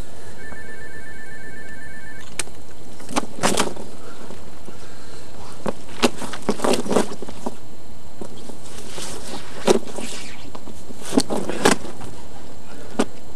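Scattered bursts of rustling and knocks from fishing gear being handled by hand, among them a fabric sling hung on a metal field gate.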